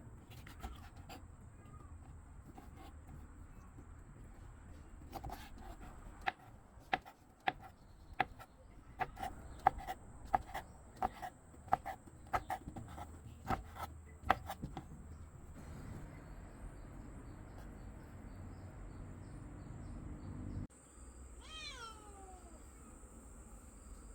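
A run of irregular sharp knocks, about one to two a second, for roughly ten seconds. Near the end a cat meows once, a single falling call.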